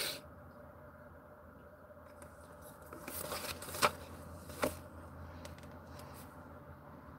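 Faint rustling and handling of paper and a pen, with two sharp light clicks about four and four and a half seconds in, over a low steady hum.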